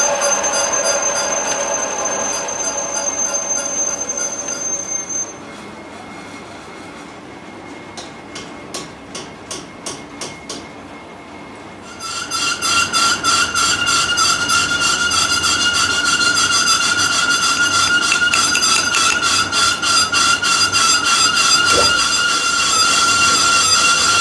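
Abrasive chop saw cutting through steel tube with a high-pitched screech that cuts off about five seconds in. A few light metallic clicks follow. From about halfway, a loud, steady, high-pitched machine squeal with a fast rhythmic pulsing.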